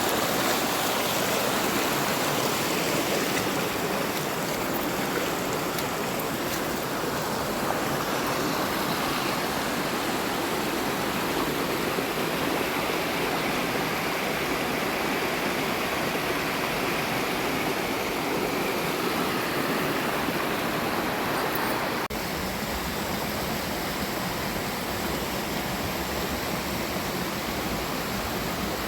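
Steady rushing of a rainforest river, with a slight drop in level about three-quarters of the way through.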